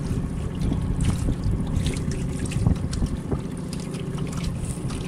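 Wind buffeting the microphone, with water slapping and splashing against the hull of a small boat under way on choppy sea.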